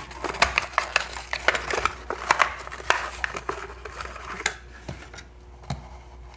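Plastic blister pack crinkling and its cardboard backing card tearing as a Hot Wheels die-cast car is pried out by hand. The dense crackling stops about four and a half seconds in and gives way to two light taps, the second with a low knock.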